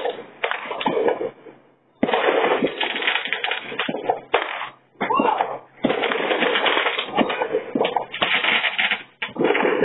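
A consumer firework that has tipped onto its side, going off in bursts of dense crackling and bangs broken by short gaps. It is heard through a security camera's microphone, which cuts off the highs and gives a tinny sound.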